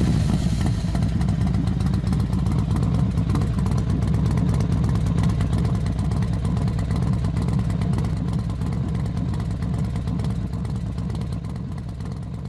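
Motorcycle engine running steadily with a rapid, even firing beat, fading slightly near the end.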